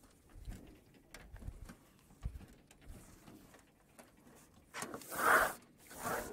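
Handheld whiteboard eraser rubbing across a whiteboard in repeated strokes, faint at first, then two louder swishes near the end.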